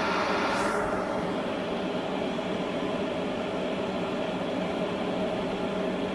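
COMFEE' stainless steel electric kettle heating water with a steady rushing rumble; its higher hiss thins out about a second in. This is the heating noise that is typical of the kettle when it starts from cold water.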